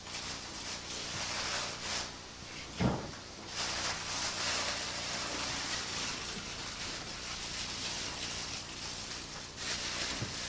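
Rustling and scraping as material is handled and rubbed on a wooden floor, uneven and continuous, with a single dull thump about three seconds in.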